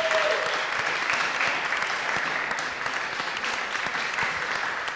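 Audience applause in a hall: many hands clapping together, easing off slightly toward the end. A brief steady tone fades out right at the start.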